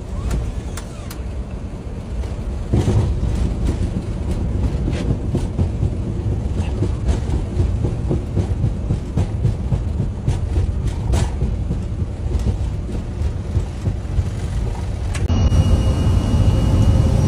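Airbus A320 jet engines rumbling at close range, with sharp clicks and knocks throughout. About 15 s in the rumble gets louder and a steady high whine joins it.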